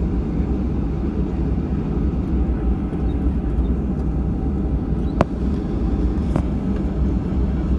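Steady low rumble and hum of an airliner heard from inside the cabin while it stands on the ground being de-iced. Two sharp clicks about five and six and a half seconds in.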